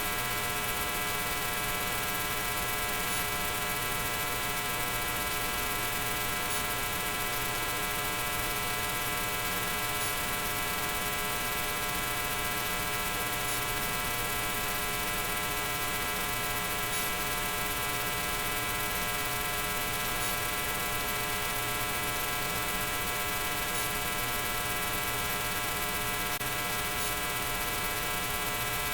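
Steady electrical hum with a buzz of many even overtones, unchanging throughout.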